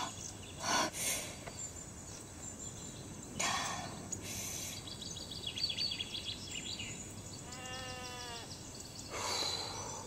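Quiet garden ambience with faint bird chirps, a short steady call near the end, and a few soft breaths or sighs.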